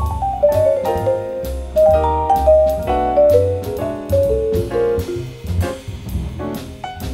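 Jazz quartet of vibraphone, piano, double bass and drum kit playing a medium-tempo tune. A melodic line of ringing notes moves over walking bass notes, with steady cymbal strokes keeping time.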